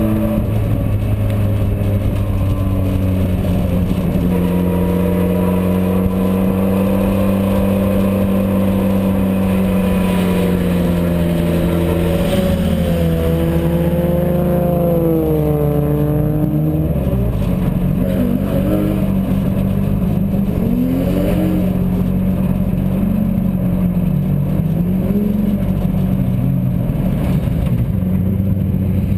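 Race car engine running hard at speed on track, heard onboard. Its note holds mostly steady, then swings up and down in pitch through the middle, with a sharp drop about two-thirds of the way in as the revs change.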